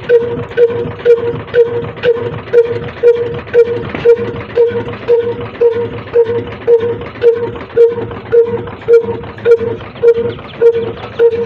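Heavy old diesel engine running at a slow, even beat, about two thumps a second, each with a short hum, just after being started.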